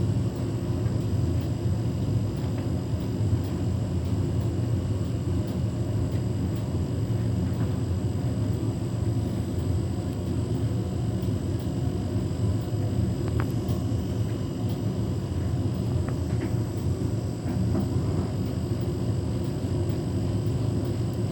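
Beko WTK104121W washing machine's drum and motor running with a steady low rumble as the machine tumbles a wet load of flannelette bedding, trying to balance it before spinning. The load is unbalanced, so the machine keeps holding off its spin.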